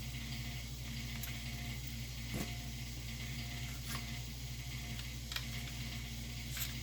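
A few faint, scattered light clicks and taps of a cleaning rod and shotgun parts being handled, over a steady low hum.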